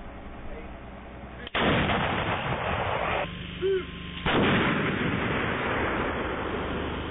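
M114/23 155 mm towed howitzer firing: a sudden blast about a second and a half in and another a little past the middle, each followed by a long, loud rumble.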